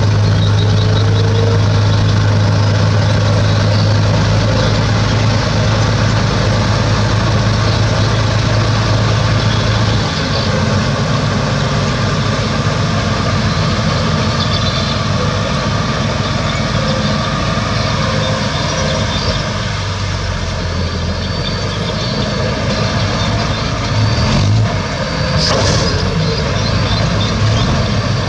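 Heavy diesel engine of an earthmoving machine running steadily with a deep hum, which eases a little about ten seconds in. A short clatter comes near the end.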